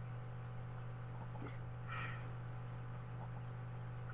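Steady low electrical hum in a laptop's built-in microphone recording, with a faint short sound about two seconds in.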